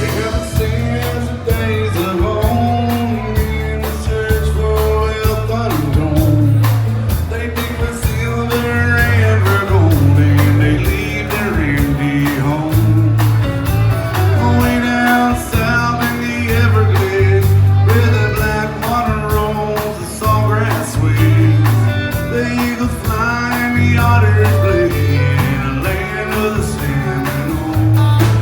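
Country-rock band music with a steady drum beat, a bass line and singing.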